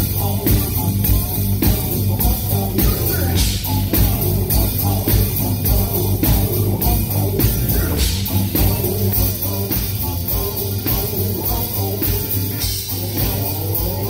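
Live band playing: a male lead voice singing over electric guitar, electric bass and keyboard, with drums keeping a steady beat.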